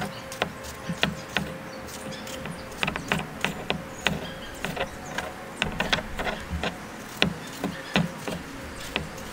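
Small kitchen knife slicing through tomatoes held in the hand, with irregular sharp clicks a few times a second as the blade cuts through and slices drop onto the pile.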